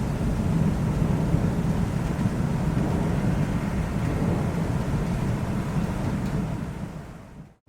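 Thunderstorm: a steady low rolling rumble of thunder over rain, fading away to silence near the end.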